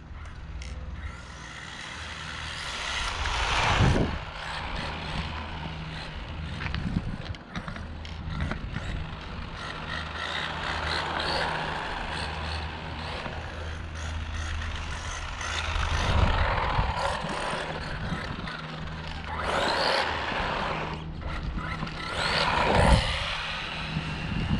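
Small electric RC truck, an Arrma Mojave Grom, driving fast on asphalt: its electric motor whines and its tyres hiss on the road surface. It comes on loud several times as it accelerates or passes close.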